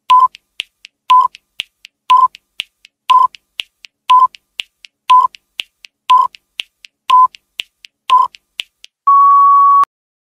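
Countdown-timer sound effect: a short beep every second, nine in all, with lighter ticks between them. It ends in one longer, slightly higher beep as the time runs out.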